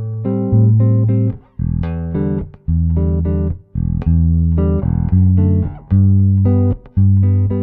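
Nordstrand Acinonyx short-scale electric bass with single-coil pickups, played fingerstyle: a bass line of separate plucked notes, each starting sharply and dying away over most of a second before the next.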